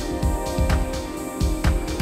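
Electronic ambient music with a steady beat of deep thumps and sharp clicks, over held tones.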